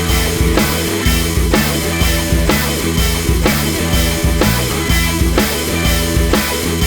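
Rock music with drums, bass and guitar over a steady beat.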